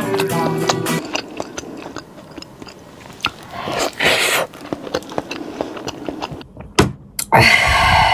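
Close-up eating sounds: chewing and biting of crispy, sauce-coated fried food, with many small crunches and clicks. Near the end come two sharp clicks.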